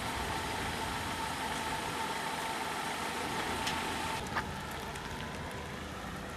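Motor vehicle engine running steadily at idle, with street noise around it; a short sharp click about four seconds in.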